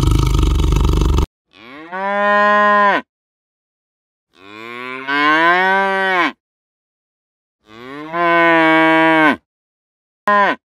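A tiger's roar cuts off about a second in. Cattle then moo three times, long calls with silence between them, each rising in pitch as it swells, followed by a short moo near the end.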